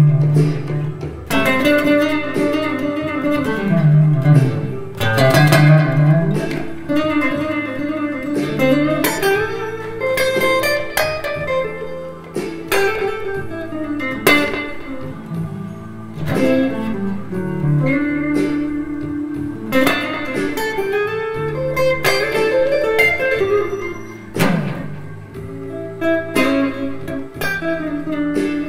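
Squier Stratocaster electric guitar playing blues-scale licks in A, single picked notes with bends and held notes, leaning on the blue note.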